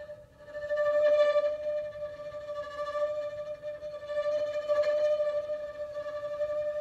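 Solo violin holding one sustained bowed note on the same pitch across several bow strokes. The sound drops out briefly just after the start, then returns and swells and eases with the bow.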